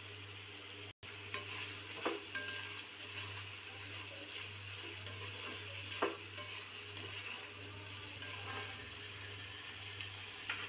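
A spoon stirring peas and masala gravy in a hot metal pan, with a steady sizzle and a few sharp clicks and scrapes of the spoon against the pan.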